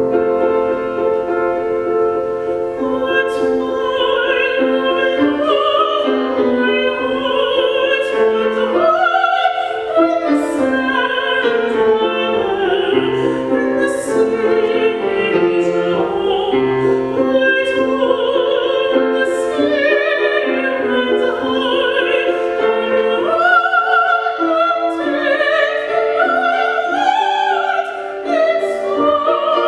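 Countertenor singing an art song with piano accompaniment. The piano starts first and the voice comes in a few seconds in.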